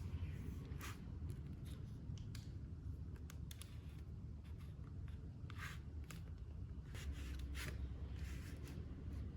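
Scattered light clicks and short rustles of a toy figure and its packaging being handled, over a steady low hum.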